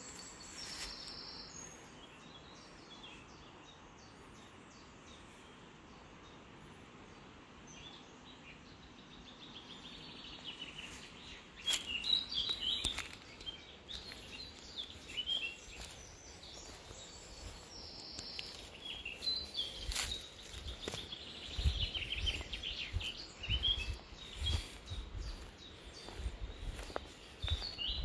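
Several small birds chirping and singing in short trills, busier and louder from about halfway through. Low thuds come in the second half.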